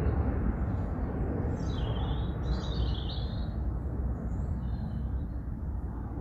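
Distant propeller aircraft droning overhead as a steady low rumble that eases slightly as it flies off. A bird chirps briefly a couple of seconds in.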